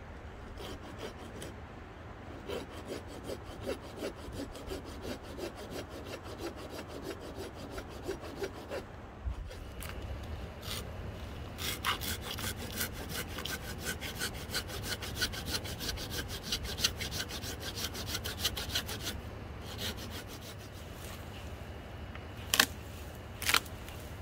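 Hand saw cutting through wood in quick, even back-and-forth strokes, about three a second, with a short pause about ten seconds in. Two sharp cracks near the end.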